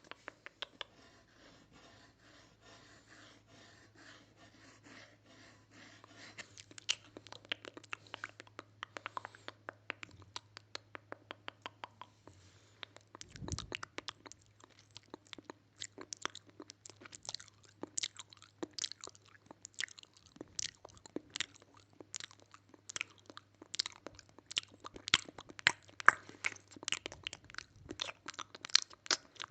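Close-miked crisp crunching and clicking, soft and sparse for the first few seconds, then a quick, irregular run of sharp crunches.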